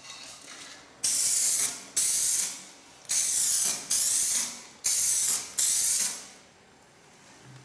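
Spray paint hissing out of an aerosol can in six short bursts, each under a second long, with brief pauses between them.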